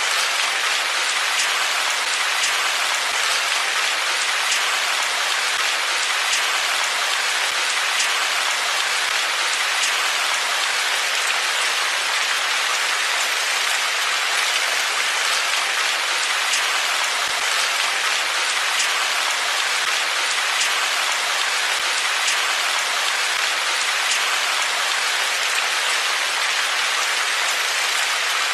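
Steady rain falling, an even hiss with scattered distinct drop hits.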